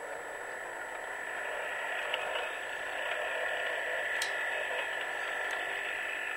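Recorded soundtrack played back through a small digital voice recorder's speaker: a steady electronic hiss with a held high tone, the background ahead of the B9 robot's voice.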